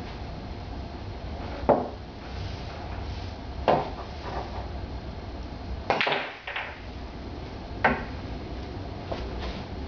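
Pool balls clacking on a table: sharp single knocks at a few moments, and about six seconds in a quick cluster of clacks as a shot is played, the cue tip striking the cue ball and balls colliding.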